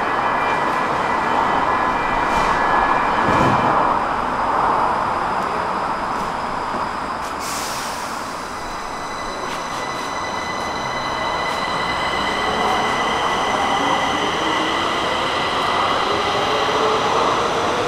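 Stockholm metro train running, with steady rumble and high electric motor whine. A brief hiss comes about seven seconds in, and a lower whine rises slowly in pitch near the end as the train picks up speed.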